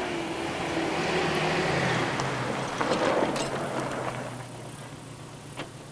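Mini truck driving past. The engine hum grows louder over the first two seconds, rattles a few times about three seconds in, then fades as it drives away.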